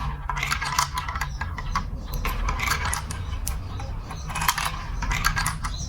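Marbles rolling and clicking through a plastic building-block marble run, in quick clattering runs, over a steady low hum.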